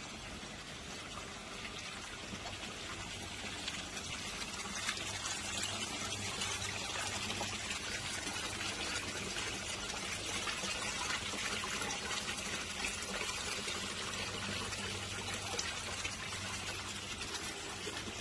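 Steady splashing of water pouring from a spout into a koi pond, growing louder a few seconds in, with a low steady hum underneath.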